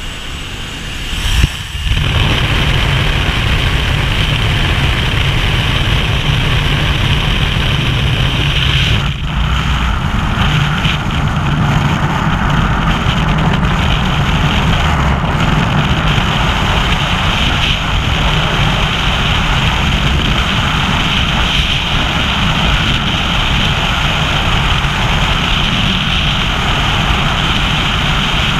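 Skydiving freefall wind rushing over a helmet-mounted camera's microphone: a loud, steady roar. It starts suddenly about two seconds in, at the exit from the aircraft, after a short stretch of quieter cabin and engine noise at the open door.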